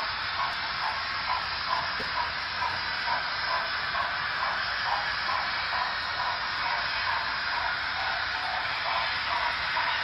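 HO scale model trains running on the layout: a steady hiss with a faint regular pulse about three times a second.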